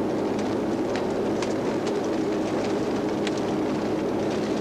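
Steady engine and road hum of a moving vehicle, with a few faint scattered clicks.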